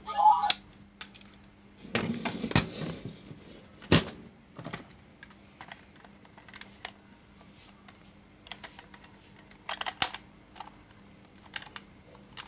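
Hard plastic toys being handled, with scattered sharp clicks and light clatter as a DX Build Phone is picked up and its hinged cover worked. A louder click comes about 4 s in and again about 10 s in. A toy's electronic sound fades out in the first half second.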